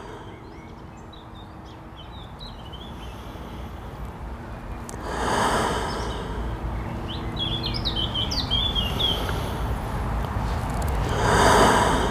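Slow, deep breaths, each a long airy rush lasting about a second, one about five seconds in and another near the end. Small songbirds chirp in the background, most clearly in the middle, over a steady low rumble.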